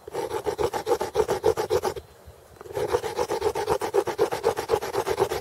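A stone rubbed quickly back and forth across the cut end of a deer antler, grinding and polishing it smooth: a steady run of rasping scrapes that stops for under a second about two seconds in, then carries on.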